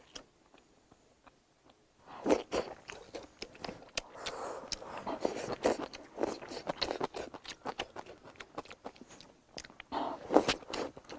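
A person chewing a mouthful of rice and spicy fish close to the microphone, a rapid run of small mouth clicks and crunches. It starts about two seconds in, after a near-silent pause.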